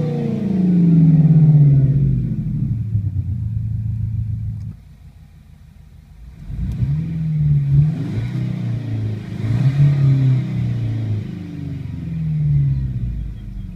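Engine sound from a Renault Clio's R-Sound Effect system. The note falls away over the first few seconds and dips briefly. It then climbs and drops again in several short revs.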